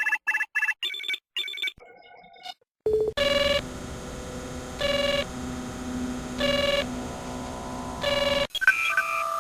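Star Trek: The Next Generation computer sound effects: a quick run of about six short electronic beeps, then a steady electronic hum with a two-tone chime repeating about every second and a half, and a new pair of beeps near the end.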